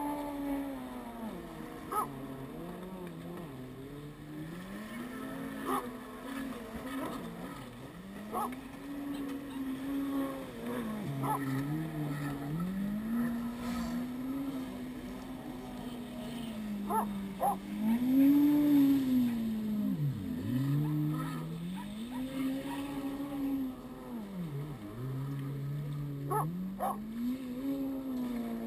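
Yamaha FZR personal watercraft (jet ski) engine on the water, its pitch repeatedly rising, holding and falling every few seconds as the craft speeds up and slows through turns, loudest a little past the middle.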